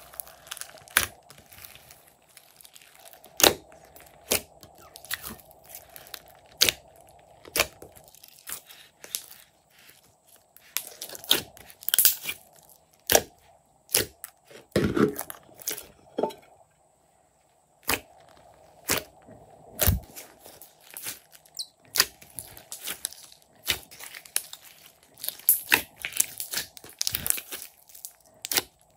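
Glossy slime being squeezed and kneaded by hand, giving off irregular sticky pops, clicks and crackles as air pockets burst.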